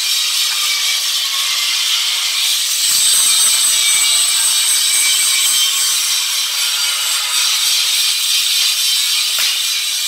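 Steady, high-pitched hiss of workshop noise. Near the end a single sharp click comes as the stud welding gun fires a stud into the steel plate.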